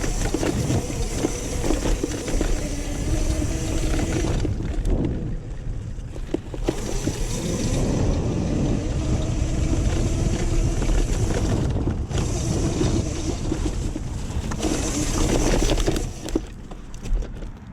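Razor MX500 electric dirt bike riding through mud and shallow water: the chain-driven motor whines at a steady pitch over heavy wind rumble on the microphone. The whine drops out a few times as the throttle is eased off, with a longer lull near the end.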